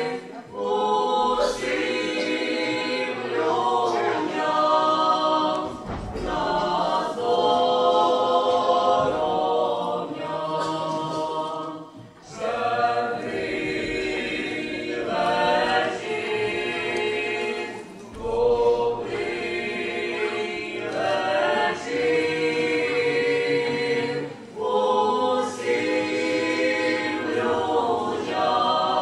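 Choir singing a cappella, in phrases with brief pauses between them.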